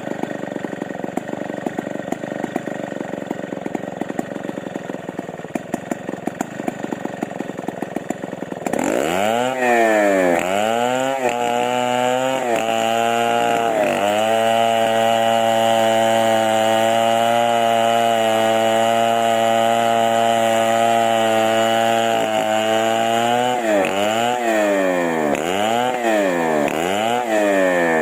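Chainsaw engine idling with a fast chatter, then revved up sharply about a third of the way in. It is blipped up and down a few times, held at high revs steadily for about nine seconds, then blipped several more times near the end.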